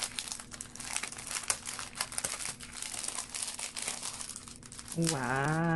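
Clear plastic packaging sleeve crinkling in quick, irregular crackles as it is opened and a CD and postcard are slid out of it.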